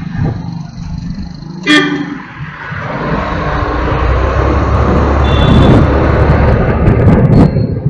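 A short, sharp vehicle horn toot about two seconds in, over the low rumble of a vehicle driving through town traffic. The driving noise swells louder from about three seconds in.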